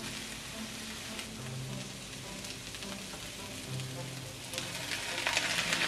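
Sliced onion, carrot and cabbage sizzling as they stir-fry in an enameled cast iron wok. The sizzle grows louder about four and a half seconds in.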